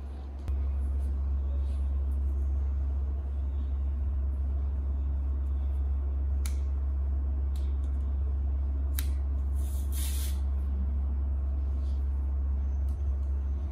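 A steady low rumble that comes in about half a second in. Over it, a few sharp clicks and a brief rustle as plastic tent poles are fitted into a fabric teepee cover.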